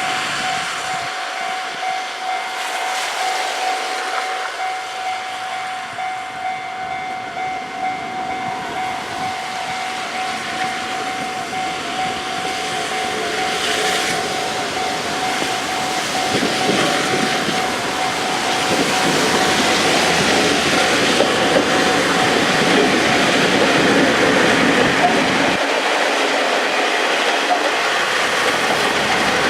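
A level-crossing warning bell rings steadily over the hiss of rain. In the second half a KiHa 40 and KiHa 48 series diesel railcar set approaches and passes, its engine rumble and wheel noise swelling, with a few wheel clicks over the rail joints.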